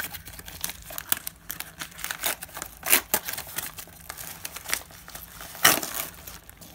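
A yellow mailer envelope being torn open by hand: steady crinkling and ripping, with two louder rips, one about three seconds in and one near the end.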